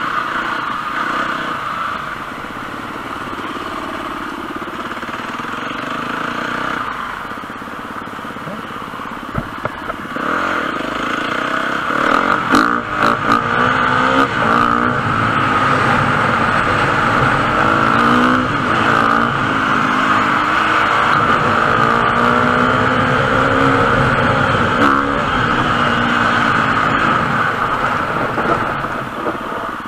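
Enduro motorcycle engine running as the bike is ridden, steadier at first. From about twelve seconds in it gets louder and the revs rise and fall again and again, with a few sharp knocks around that point.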